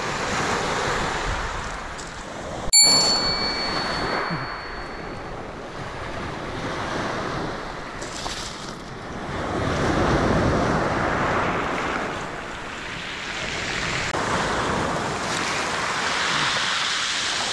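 Surf washing in and out over a pebble beach, swelling and fading with each wave. About three seconds in, a single bright bell ding rings out and dies away, the notification-bell sound effect of a subscribe animation.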